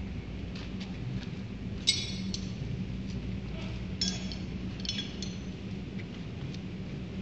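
Steady low hum of running plant machinery, with a few ringing metallic clinks. The loudest clink comes about two seconds in, and two lighter ones follow around four and five seconds.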